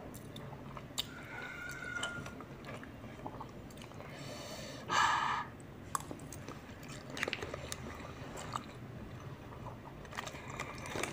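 Close-miked chewing of chicken noodles (mie ayam), with small wet mouth clicks, and one loud slurp of noodles about five seconds in.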